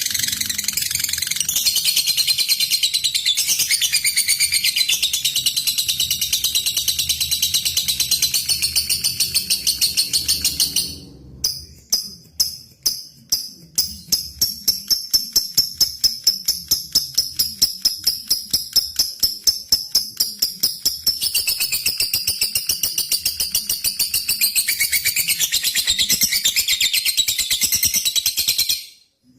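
Lovebird in long ngekek chatter: a dense, high-pitched run of continuous trilling. About eleven seconds in it breaks into rapid separate sharp chirps (ngetik), a few a second, then returns to continuous chatter that cuts off suddenly near the end.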